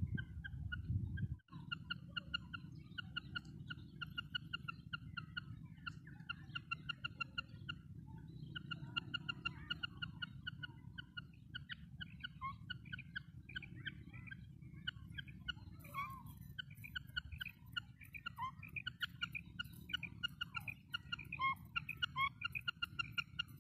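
Female common quail calling: short, quick notes repeated in runs of several, over and over, with a steady low rumble underneath. From about two-thirds of the way through, the calls become busier and more varied, with some sliding notes.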